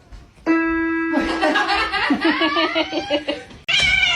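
Cat meowing and yowling: a run of short rising-and-falling calls, then a loud falling meow near the end. A steady held tone sounds for about a second and a half, starting about half a second in.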